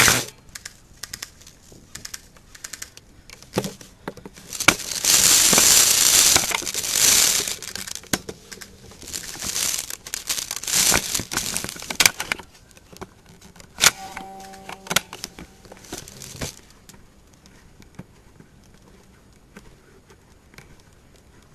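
Rustling and crinkling handling noise of a player on the move close to the microphone, in irregular loud stretches with scattered sharp clicks; it dies down to a faint rustle near the end.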